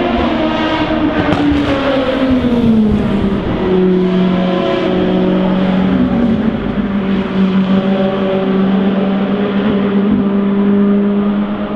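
Endurance race car engines running hard past the track. The pitch falls about one to three seconds in and again around six seconds in, then holds steady.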